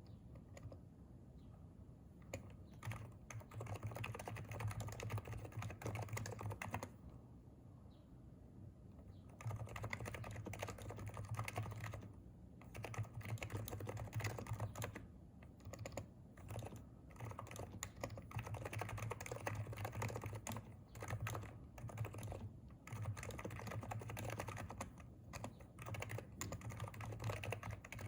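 Typing on a Hansung electrostatic capacitive (non-contact) keyboard: quick runs of keystrokes, broken by a pause of a couple of seconds about seven seconds in and by shorter pauses later.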